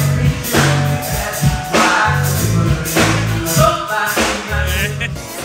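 Live band music: a heavy bass line and drums on a slow, steady beat, with singing over it.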